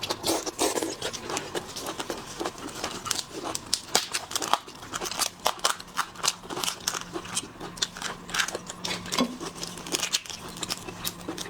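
Close-miked eating: a dense run of small crunches, clicks and crackles from chewing and handling seafood.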